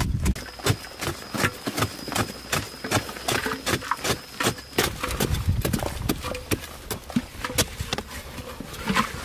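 Rapid, uneven series of sharp knocks, several a second, with a thin, steady high tone in the first half that stops about halfway through.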